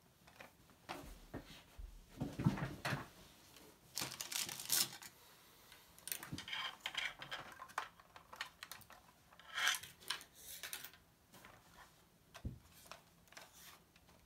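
Handling noise from a 1:18 diecast model car: irregular small clicks, taps and rubbing of plastic and metal as hands turn the model and work its opening door, with one duller knock near the end.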